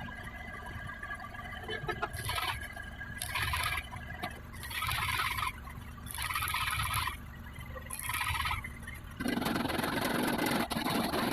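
Metalworking noise: about five short, harsh scraping strokes roughly a second or so apart, then a longer, fuller one near the end.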